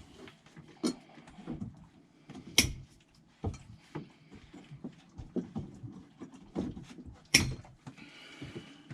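Irregular handling clicks, knocks and light rattles, with two sharp knocks about two and a half seconds in and about seven and a half seconds in.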